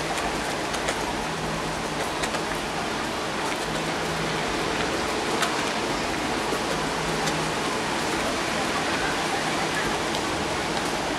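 Steady hiss and wash of ocean surf breaking along the beach, heard from high above the shore.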